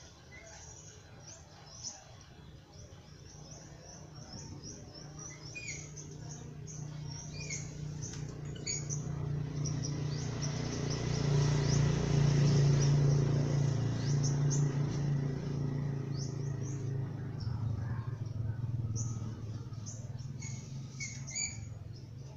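Small birds chirping repeatedly in short high calls, while an engine's low drone grows louder, peaks about halfway through and fades away, as a passing vehicle does.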